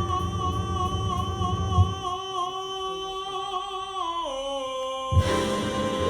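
A gospel-blues song played through Wilson Audio loudspeakers: voices hold one long sung note with no words. The bass drops away about two seconds in, the note steps down in pitch about four seconds in, and the bass comes back in about five seconds in.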